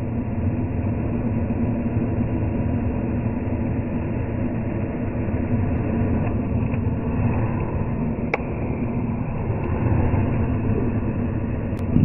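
Handheld hairdryer running steadily with an even blowing hum, with a single sharp click about eight seconds in.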